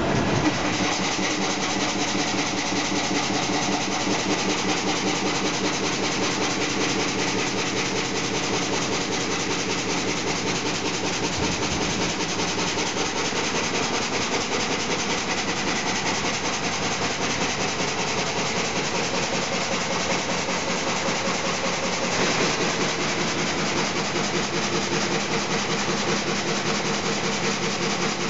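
Heavy sawmill machinery running as a log is fed through a large log saw: a steady, loud din with a fast, even rhythmic clatter. The tone of the clatter shifts a little about 22 seconds in.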